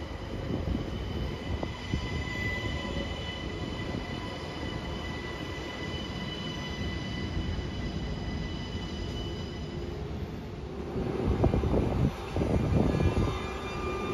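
A train passing through a station: a steady low rumble with several high-pitched whining tones held over it. Near the end the sound grows louder and rougher.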